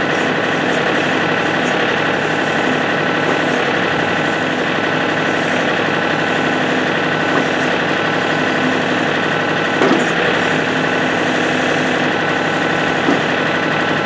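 John Deere compact tractor's diesel engine running steadily at a constant speed, powering the backhoe's hydraulics.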